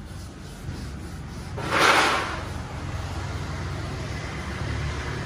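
Engine running with a steady low rumble, with a short loud hiss about two seconds in.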